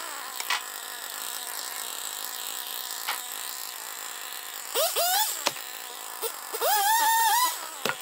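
Husqvarna T540 XP Mark III two-stroke top-handle chainsaw idling. Its throttle is blipped twice, quickly, about five seconds in, then revved up, held for under a second and let drop back to idle near the end.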